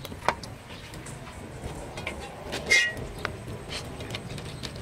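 Light clinks and scrapes of a metal tray against an aluminium cooking pot as a whole roasted duck is slid into it, with a short high squeal about halfway through.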